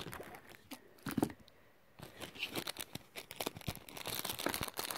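Clear plastic packaging crinkling and rustling as small bagged items are handled. A few scattered crackles at first, then a busier run of crinkling from about two seconds in.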